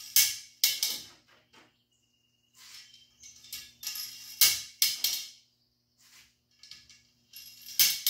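Small metal T-nuts clinking and rattling against the roof rack's aluminium cross slat as they are slid into its channel. The sound is a string of irregular sharp metallic clicks, the loudest near the start, about halfway through, and near the end.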